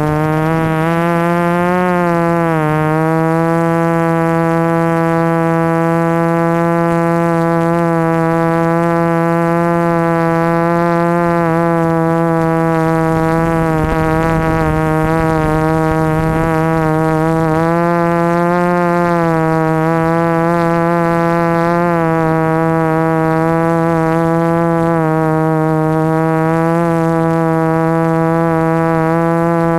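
A small quadcopter's electric motors and propellers buzzing steadily in flight, the pitch dipping and rising slightly with throttle changes. A rush of air noise joins in about halfway through.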